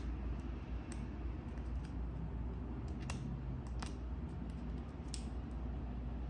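A few sharp clicks or taps, about four, spaced irregularly over a steady low rumble.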